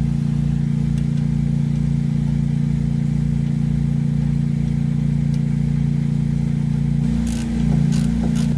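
A steady low mechanical hum from a running motor, with a slow throb under it. Near the end a quick run of sharp metallic clicks starts.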